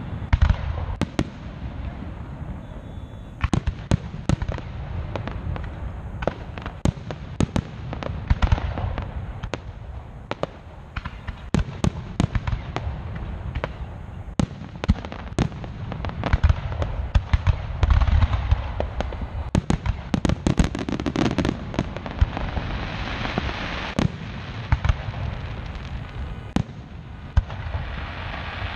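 Aerial fireworks shells bursting in quick, irregular succession: dozens of sharp bangs over a continuous low rumble of echoing booms. Around two-thirds of the way through, a dense crackling hiss swells up among the bangs.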